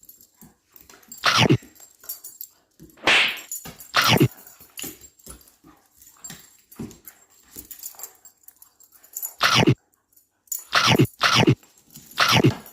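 Dogs play-fighting: a string of short, sharp barks and yips, with a quieter stretch in the middle.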